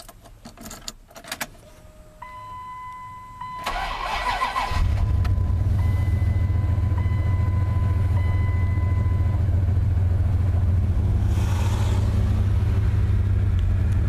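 1999 Dodge Ram's 318 Magnum V8 cold-started: after a few key clicks the starter cranks briefly and sluggishly, and the engine catches about five seconds in and settles into a steady idle. The slow cranking is the sign of a weak starter or battery, with the owner's money on the starter. A thin steady tone sounds over the first half.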